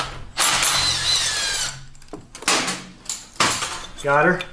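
A hand wrench working loose an 8 mm nut on a Yamaha Zuma 50F scooter engine: a spell of metal tool noise lasting about a second, then two short ones, until the nut gives near the end.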